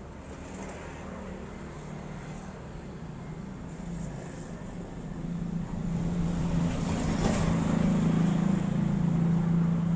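A motor vehicle engine running close by, its steady hum growing louder about halfway through and staying loud near the end.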